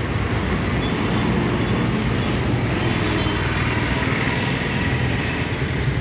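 Steady street traffic noise from passing vehicles, a continuous rumble with no single event standing out.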